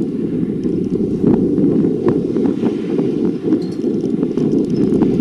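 Wind buffeting the microphone: a steady low rumble with no whine in it, broken by scattered faint clicks.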